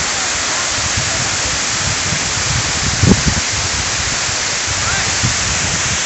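Tall waterfall plunging down a cliff: a steady, dense rush of falling water and spray. A few short low thumps break in, about three seconds in and again near five seconds.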